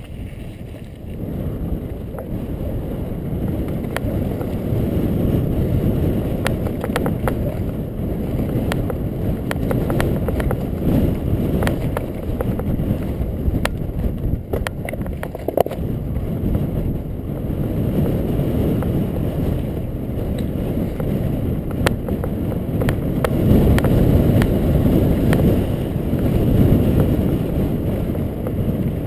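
Mountain bike riding fast down rocky singletrack: wind buffeting the on-board camera microphone and tyres rumbling over gravel, with frequent sharp clicks and knocks from stones and the bike rattling.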